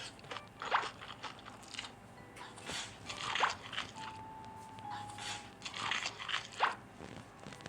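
Close-miked eating: wet, crunchy bites and chews with squishing, in irregular bursts about once a second.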